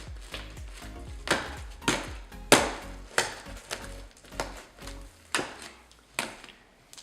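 Confetti slime being squeezed and stretched, giving sharp clicks and pops about one or two a second, over background music that drops out about five seconds in.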